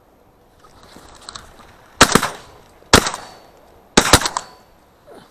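Shotguns firing at flying ducks: a rapid series of sharp reports about a second apart, starting two seconds in, with the last two almost together. They come from an Armsan 612 semi-automatic 12-gauge and a second hunter's gun.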